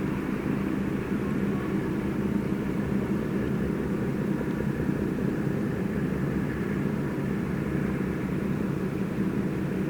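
A steady, unchanging low roar with a hum running through it: the 'gō' noise from the hotel building behind the harbour.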